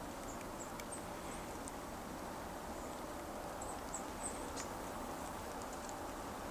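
Steady outdoor ambience, an even rushing hiss, with a few faint high chirps in two short clusters, about a second in and about four seconds in.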